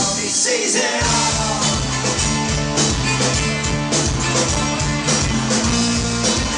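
Folk-punk band playing live. The bass and drums drop out for about a second at the start, then the full band comes back in with a steady driving beat.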